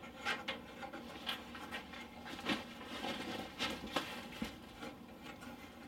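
Light handling noises from model airplane parts being moved about: soft rubbing and a handful of short knocks and clicks, scattered about a second apart.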